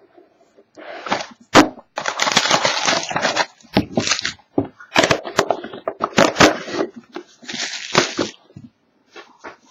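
The plastic wrap on a sealed trading-card box being torn off and crinkled as the box is opened, in irregular crackling bursts with a few sharp snaps.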